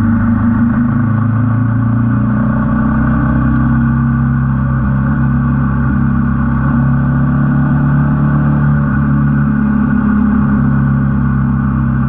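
Royal Enfield Himalayan 450's single-cylinder engine running at steady revs while the motorcycle is ridden.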